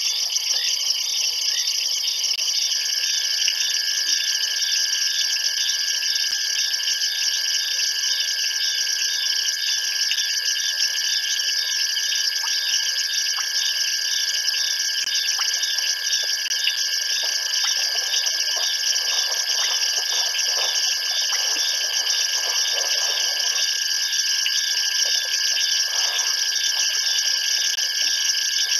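Night chorus of insects and frogs: a dense, steady high-pitched shrilling with a chirp repeating about twice a second, joined about three seconds in by a steady single-pitched trill.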